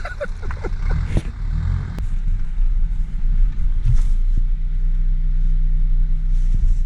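Motor vehicle engine running steadily at low revs while the car is being towed, with a few light knocks.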